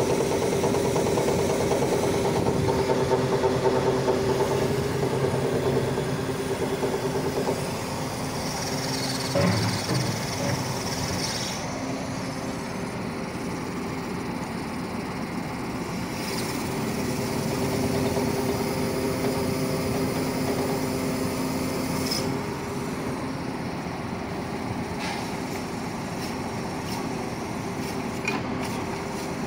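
Atlas 330.1 crane's hydraulic system running as the boom is worked: a steady whine with a fast metallic tak-tak rattle, and a hydraulic hose vibrating. The operator puts this abnormal metallic sound down to the piston-type hydraulic pump, not the relief valve.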